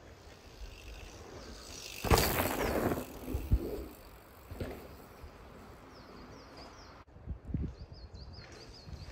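Mountain bike on a dry dirt forest trail: a loud burst of tyre noise over the dirt about two seconds in, a sharp knock a second later, and smaller bursts after. A small bird sings a short repeated phrase twice in the second half.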